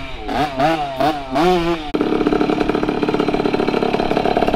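Honda CR50's small single-cylinder two-stroke engine revving up and down in quick, repeated blips as the bike is ridden. About two seconds in the sound changes abruptly to the engine idling steadily with a fast, even beat.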